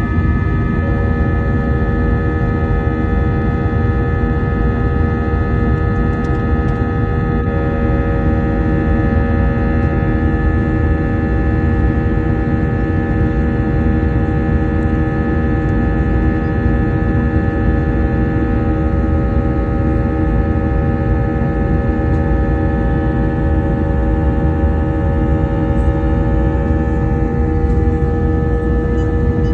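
Jet airliner in flight, heard from inside the cabin: a steady deep rumble of engine and air noise with a steady multi-tone hum from the wing-mounted turbofan engine.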